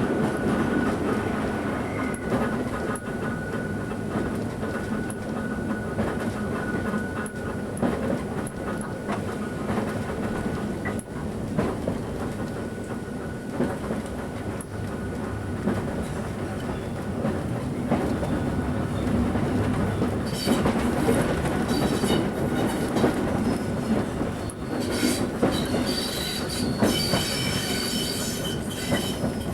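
British Rail 2EPB electric multiple unit running along the line, with its steady running noise, wheels clicking over rail joints, and the whine of its old, worn English Electric traction motors. About two-thirds of the way through, a high-pitched squealing sets in.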